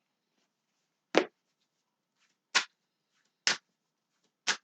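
Tarot cards slapped down on a table one at a time: four short, sharp slaps about a second apart.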